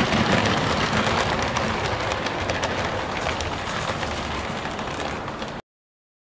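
Model train coaches running along layout track, a steady rushing rattle of small wheels on rail that slowly fades as the train moves away. The sound cuts off suddenly about five and a half seconds in.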